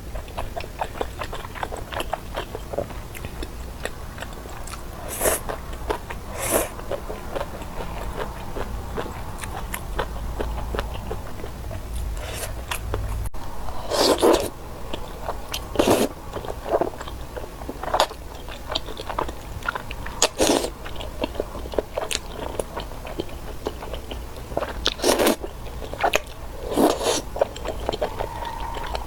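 Close-miked biting and chewing of chewy garae-tteok rice cakes in tteokbokki sauce: irregular sticky, wet mouth clicks and smacks, with a louder smack every few seconds.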